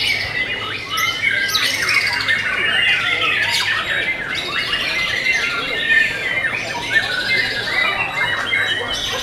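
White-rumped shamas singing in a songbird contest: a dense, overlapping tangle of fast whistles, chatters and squawks from several birds at once, with no pause.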